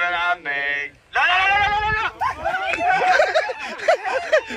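A man's loud wordless yells, then a group of men laughing over each other.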